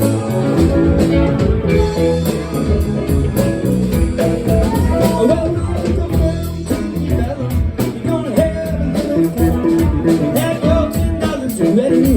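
Live blues-rock band playing: electric guitar, bass and drum kit, with some singing.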